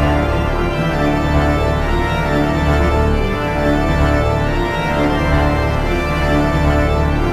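Organ music: held chords over a repeating low bass line, changing notes every second or so.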